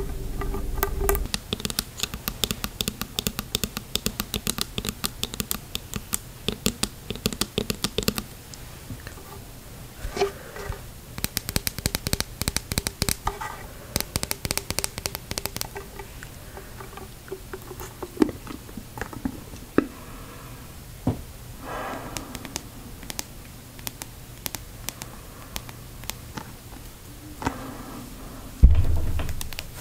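Long fingernails tapping and scratching rapidly on a clear plastic snorkel tube, in fast flurries of sharp clicks with slower single taps and scrapes between. A loud low thump comes near the end.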